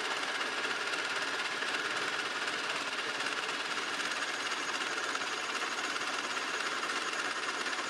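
Round-column mill-drill running with a twist drill cutting into a metal bar, a steady, even drilling noise as the bit bores through.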